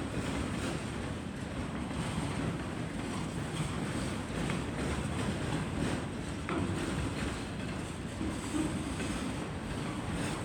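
Freight train rolling past: a steady rumble of railcars on the track, with a few faint wheel clicks.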